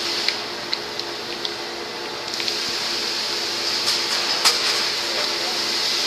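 Steady hum and rushing noise of a tilting rotary melting furnace and the foundry machinery around it, with a few scattered sharp clicks.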